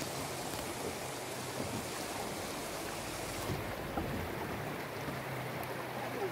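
Steady rushing of fast, choppy river water around a small boat, with wind buffeting the microphone.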